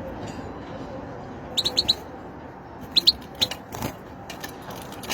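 Bird chirping: a quick run of four short, high chirps, then two more and a single one a little later, over steady background noise.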